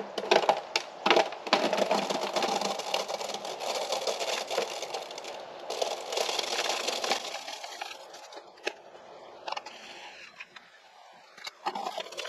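Electric cement mixer drum turning with concrete mix tumbling inside: a gritty rattle and scrape with many sharp clicks of stones. About two-thirds of the way through it drops to a quieter churn with a few scattered knocks.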